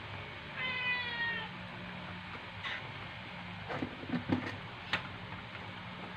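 A domestic cat meows once, about half a second in. The call lasts about a second and falls slightly at the end. Later come a few light clicks and knocks.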